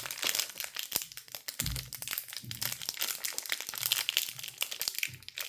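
Thin plastic packaging crinkling and crackling in quick, irregular bursts as a small wrapped toy package is handled and opened by hand.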